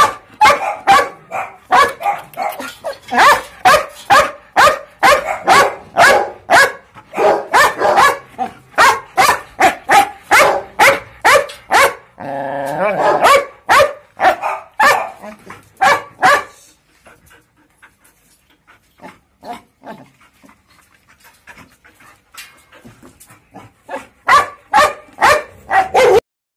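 Belgian Malinois barking in rapid runs of sharp barks, two or three a second, with one longer drawn-out cry about twelve seconds in. The barking stops for several seconds and starts again briefly near the end.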